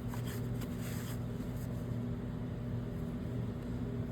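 Steady low machine hum of the workshop background, with a few faint light clicks and scrapes of a small metal tool on the pump in the first second.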